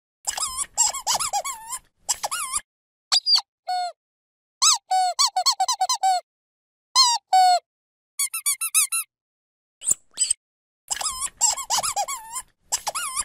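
Dog's rubber squeaky toy squeezed over and over, in quick bursts of several squeaks with short silent gaps between them. Each squeak is a pitched note that bends up and down.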